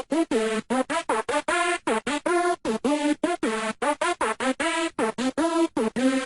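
Electronic music: a fast run of short, choppy synthesizer notes, each cut off sharply, several of them bending in pitch.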